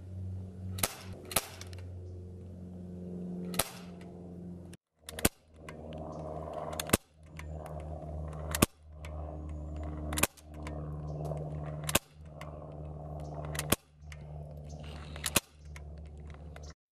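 .177 BB air pistol fired shot after shot, about ten sharp cracks spaced roughly 1.5 to 2 seconds apart, over a steady low hum.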